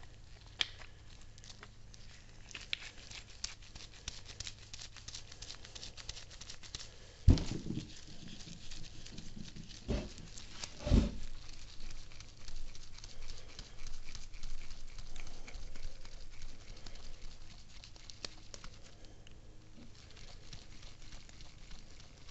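Handling noise of greasy metal tilt-mechanism parts being screwed together by gloved hands on a threaded worm screw: light clicks and rubbing throughout, with three dull knocks in the middle, the first the loudest.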